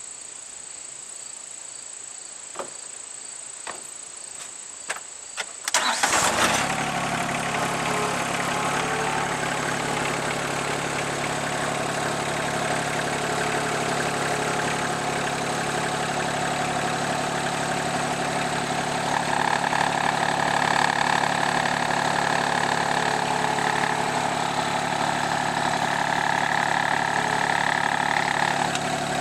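Rural King RK24 subcompact tractor's diesel engine cranked and started about six seconds in, then running steadily at idle. Twice a higher whine rises over the engine for a few seconds. Before the start, crickets chirp steadily with a few light clicks.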